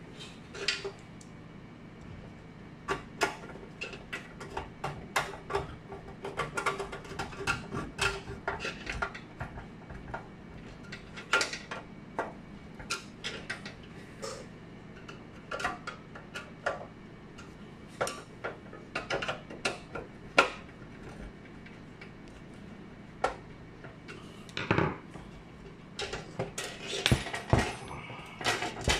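Screwdriver and metal lamp-fixture parts clicking and clinking irregularly as the housing and yoke of a stage light are worked on by hand, with a few heavier knocks near the end.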